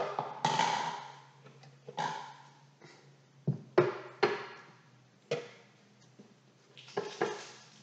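Scattered knocks and clatters, with some rustling, as kitchen things are picked up and set down: about eight sharp hits at uneven gaps, two of them close together near the end.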